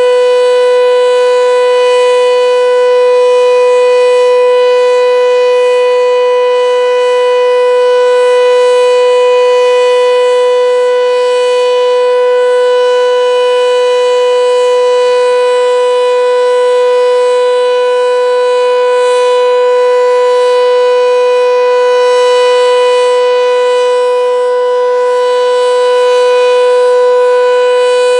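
Sentry 7V8-B outdoor warning siren sounding a steady alert: one loud, unwavering tone with gentle swells in loudness.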